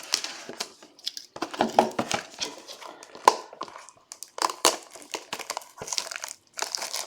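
Plastic wrapping crinkling and tearing in irregular crackles and rustles as a sealed box of trading cards is unwrapped.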